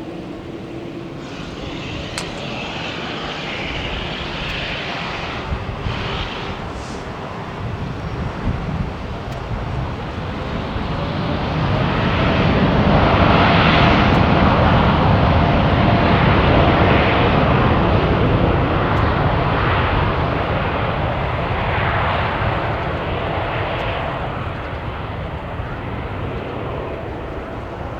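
Jet airliner's engines passing: a loud rushing noise that builds to a peak about halfway through and then slowly fades.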